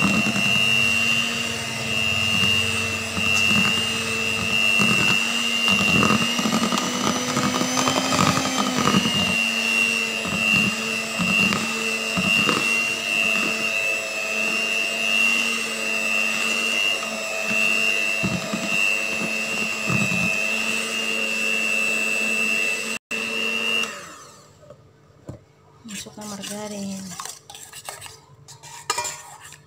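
Miyako electric hand mixer running at a steady high whine while its beaters whip sponge-cake batter in a bowl; the motor cuts off near the end. Light clinks of a steel bowl follow as melted margarine is poured into the batter.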